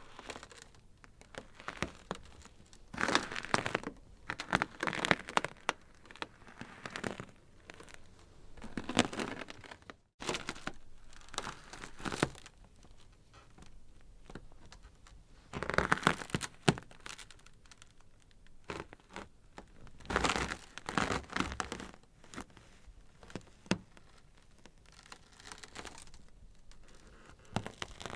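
Ice crackling and cracking: clusters of sharp snaps and crinkles come in bursts every few seconds, with fainter crackling in between.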